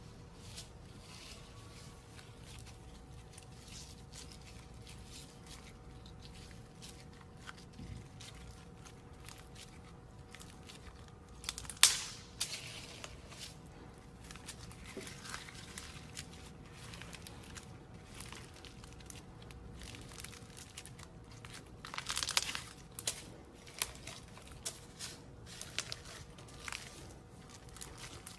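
Slime being squeezed and crushed by hand, giving soft crackling and crunching, with a louder crunchy crackle about twelve seconds in and another spell around twenty-two seconds. A faint steady hum underlies it.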